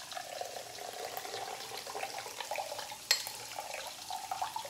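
Liquid poured in a thin, steady stream from a small glass jar into a drinking glass, the trickle's pitch rising slightly as the glass fills. A single sharp click about three seconds in.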